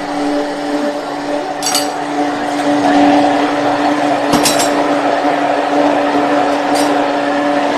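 Handheld immersion blender running steadily in a stainless steel cup, puréeing a thick basil pesto, with a steady motor hum. A few sharp clinks come through as it runs.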